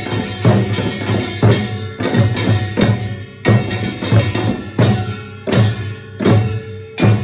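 Samulnori percussion ensemble playing: a kkwaenggwari small gong ringing over janggu hourglass drums and a buk barrel drum, in a steady rhythm of strong beats, with a short lull about three seconds in.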